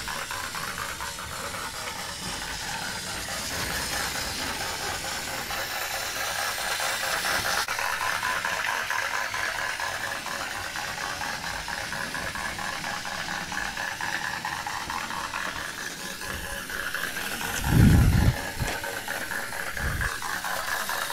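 Battery-powered Tomy toy locomotive running on plastic track, its small motor and gears making a steady whirring rattle. A single loud low thump about 18 seconds in.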